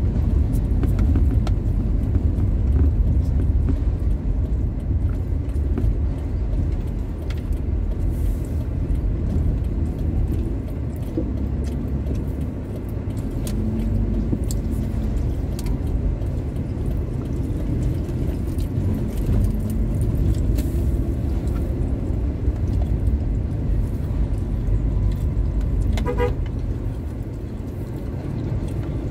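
Steady low rumble of a vehicle driving in traffic, engine and tyre noise, with a few small clicks and rattles. Near the end a short horn beep sounds.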